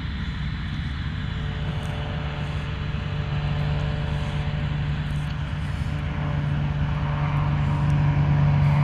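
Cessna 180's Continental O-470-J flat-six engine and propeller, fitted with a Powerflow exhaust, in flight and approaching, growing steadily louder as it comes in low.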